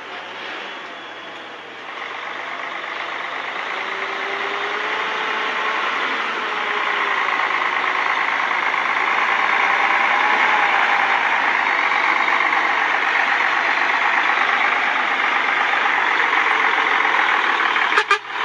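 Mercedes-Benz Axor 3340 truck's diesel engine running under load as the truck drives up close. It grows louder over the first half and then holds steady. There is a brief sharp click near the end.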